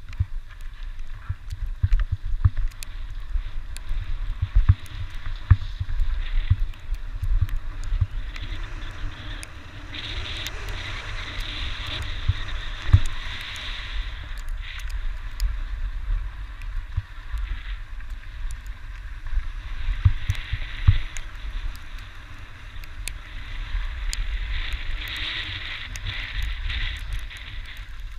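Skis hissing and scraping over spring snow during a downhill run, the hiss swelling twice, with a gusty low wind rumble on the action camera's microphone and scattered small knocks.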